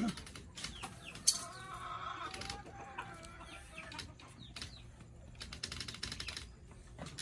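Chickens clucking and calling in the background. A sharp click comes just over a second in, and a quick run of clicks comes near the end.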